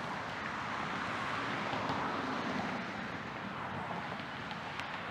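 Steady hiss of road traffic, swelling slightly about two seconds in.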